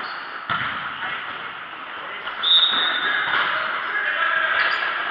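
Sound of a futsal game in a large echoing hall: players calling out over thuds of the ball being kicked. A short, high steady tone sounds about two and a half seconds in.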